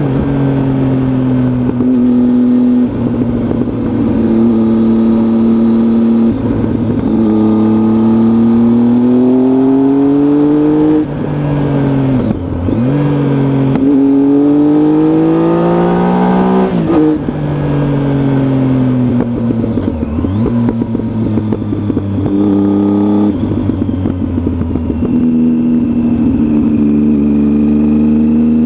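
Triumph Tiger motorcycle engine under way, its revs repeatedly climbing and then dropping sharply as the rider changes gear, with a few deeper dips where it slows.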